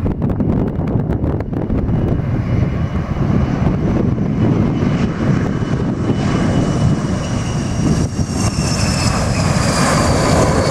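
Airliner's engines whining as it passes, growing louder over the second half, the high whine falling slowly in pitch. Gusty wind buffets the microphone throughout.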